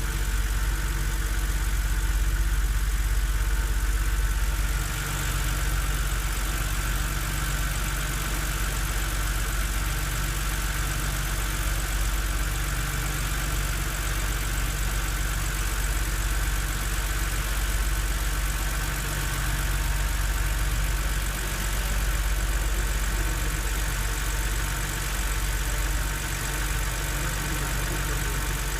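BMW Z4 3.0si's inline-six idling steadily after a cold start, with the loud engine knock that appears once the idle settles on a cold engine and goes away after about 15 minutes of driving.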